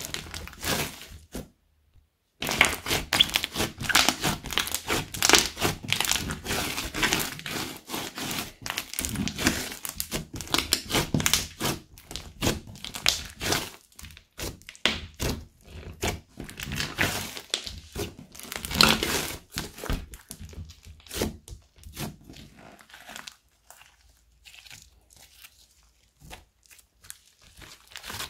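Thick slime made with kinetic sand being squeezed, folded and stretched by hand, giving dense sticky crackles and small pops. There is a brief silent break about two seconds in, and the crackles thin out to sparser pops in the last third.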